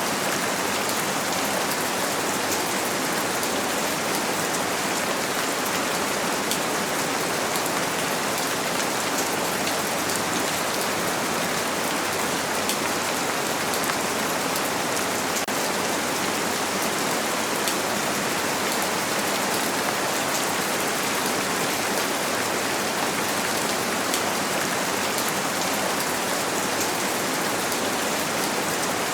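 Steady rain on a window: an even hiss with faint, fine drop ticks, unchanging throughout.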